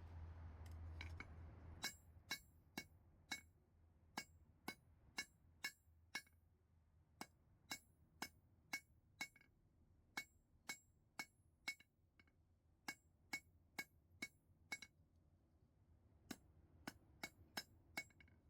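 Blacksmith's hammer striking hot steel on an anvil, forging a small flare from spring steel: sharp ringing strikes, about two a second, in short runs with brief pauses. A low hum stops about two seconds in.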